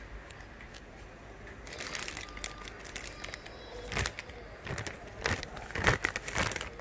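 Clear plastic packaging crinkling and crackling as it is handled, in irregular rustles and sharp crackles that start about two seconds in and are loudest near the end.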